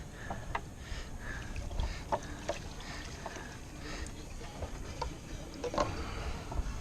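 Steady low rumble on a small fishing boat on open water, with scattered light clicks and knocks.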